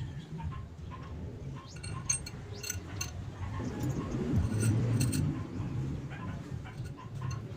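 A few light metallic clinks, as of metal parts or tools knocking together and ringing briefly, in two short clusters about two and five seconds in, over a steady low rumble.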